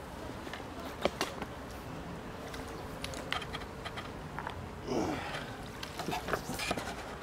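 Tackle-handling noise from landing a small pike: scattered light clicks and ticks, with a short rushing, splash-like noise about five seconds in.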